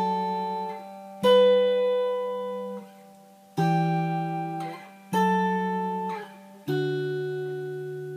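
Guitar playing a slow four-chord progression as two-note chords on the A and B strings, plucked with the fingers and no pick. A new chord sounds about every second and a half, each ringing and fading before the next, dry with no delay or reverb.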